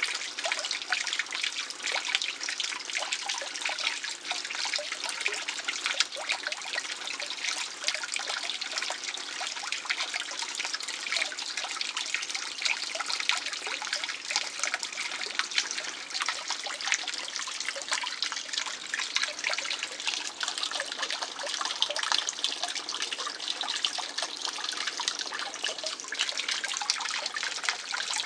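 Water trickling and splashing steadily into a garden fish pond, dense with small droplet splashes.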